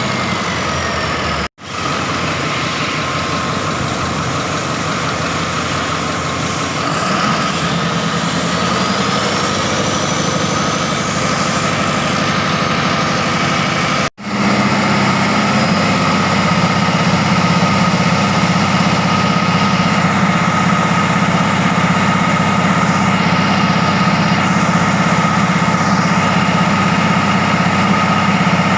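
Caterpillar 3508 V8 diesel engine running on a test run after overhaul. A whine rises in pitch about seven seconds in, and the engine runs louder after a brief gap about halfway through. A second brief gap comes near the start.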